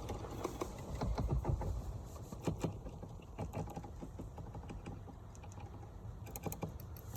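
Irregular light clicks and taps of hands and tools working the blower motor and its mounting screws into place under the dash, over a low background rumble.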